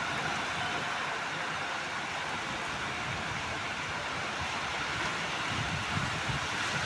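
Heavy rain falling as a steady hiss, with low rumbling gusts of wind on the microphone near the end.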